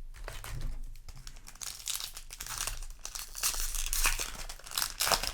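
Foil booster-pack wrapper of a Yu-Gi-Oh! card pack crinkling and crackling as it is handled, with some tearing, in irregular bursts that are busiest in the second half.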